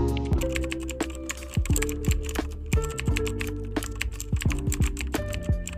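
Electronic background music: held notes over a dense run of crisp, clicky percussion and bass drum hits that slide down in pitch.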